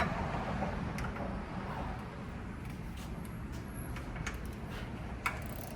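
Steady low background rumble with a few sharp metallic clicks spread through it, from a wrench and socket working on engine bolts during torquing.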